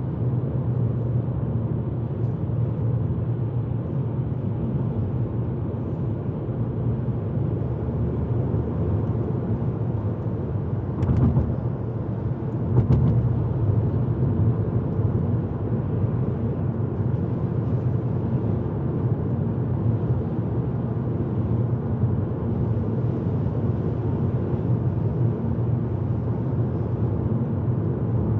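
Car driving on snowy roads, heard from inside the cabin: a steady low rumble of engine and tyre noise. A brief louder scuff or bump comes about 11 seconds in and again about 13 seconds in.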